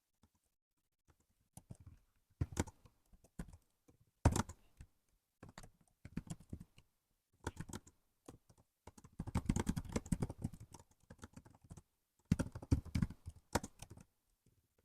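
Typing on a laptop keyboard in uneven bursts of rapid key clicks with short pauses, the quickest run a little past the middle.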